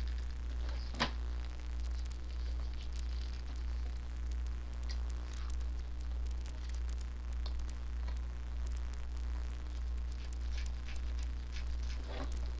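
Steady low electrical hum, with faint scattered clicks and rustles of gloved hands handling wires and a small circuit board.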